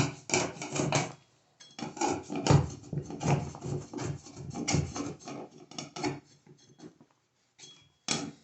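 Irregular scraping and rubbing strokes as wet, moisture-damaged material is cleared out of a hole in drywall. They stop about six seconds in, and a single sharp scrape or knock follows near the end.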